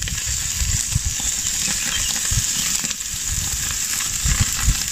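Whole roast beef searing on a very hot charcoal grill grate, sizzling steadily.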